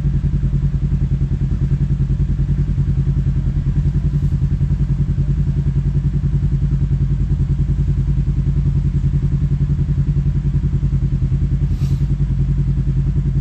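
Side-by-side UTV engine idling steadily with a rapid, even pulse, heard from inside the cab.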